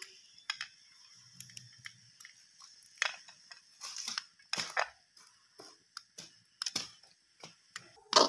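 Almonds being chopped finely with a small kitchen knife on a ceramic plate: irregular crisp cracks and crunches as the blade bites through the nuts and clicks against the plate.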